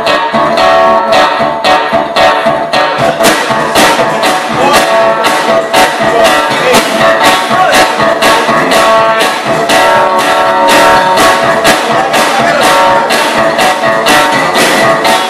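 One-man band playing live: strummed guitar over a steady beat of kick drum and cymbal hits.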